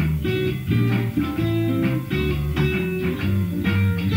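A band playing live: electric guitar chords strummed in a steady rhythm over a bass guitar line.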